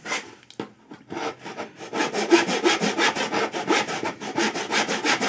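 Hand saw cutting across a wooden board, sawing a dado wall on an angle down along a knife line. A few light strokes about a second in, then steady quick strokes, about five a second.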